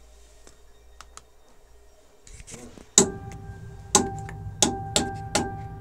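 Electronic drum pads being struck, triggering sampled sounds through the speakers: a faint hum and a few light clicks, then a loud hit about three seconds in that sets off a low rumble with a steady pitched drone, followed by four more sharp hits at uneven spacing.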